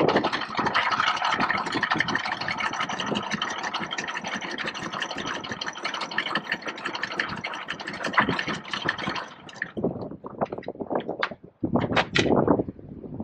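Yacht's anchor chain running out over the bow roller and windlass in a steady dense rattle that stops about nine seconds in, followed by a few separate clunks as the chain is stopped.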